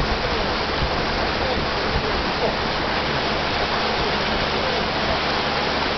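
Steady rushing noise of a small fishing boat under way: water streaming past the hull and wind buffeting the microphone, with a low engine hum beneath.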